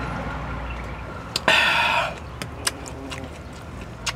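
A chicken gives one short, loud call about a second and a half in, over a low background hum. A few faint clicks are scattered through the rest.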